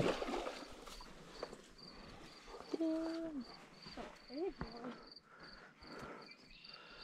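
Cricket chirping steadily, about three chirps a second, with two short pitched vocal sounds near the middle, one held then falling, one rising and falling.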